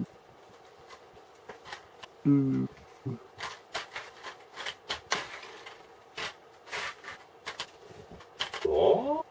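Plastic building bricks clicking and rattling as pieces are handled and pressed onto a brick model: about a dozen short, sharp clicks at irregular intervals. Brief hums of a voice come in between, with a rising one near the end.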